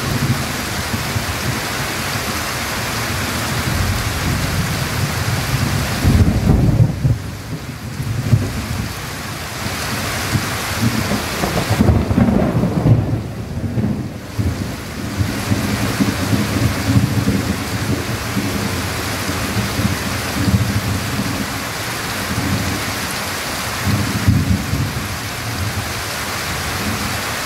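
Heavy tropical rain pouring steadily onto the ground and tree leaves, with rolls of thunder rumbling about six seconds in, again around twelve seconds, and once more near the end.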